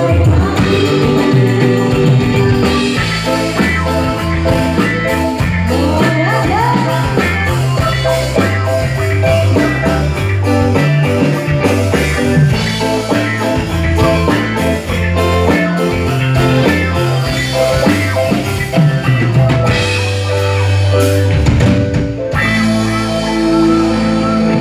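Live dangdut band music: a steady beat on drums and bass under keyboard melody, with a female singing voice at times.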